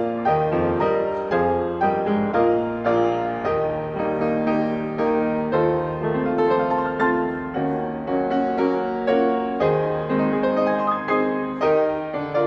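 Solo piano playing a slow, gentle piece, notes struck about twice a second and left to ring and fade.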